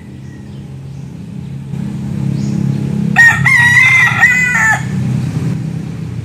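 A young rooster crows once, a single cock-a-doodle-doo lasting about a second and a half, starting a little after three seconds in. A low steady rumble runs underneath.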